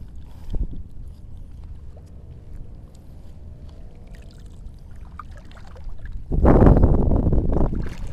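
Water sloshing and swirling around a person wading through shallow seawater. It is low and quiet at first, then much louder from about six seconds in.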